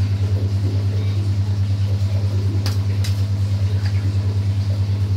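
Steady low hum with a slightly pulsing level, with two faint clicks a little under three seconds in.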